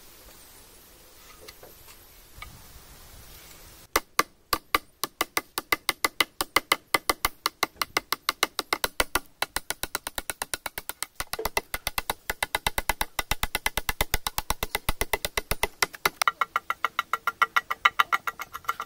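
Small hatchet chopping along the edge of a wooden beam in quick, even strokes, about four or five sharp blows a second, starting about four seconds in after a few faint taps.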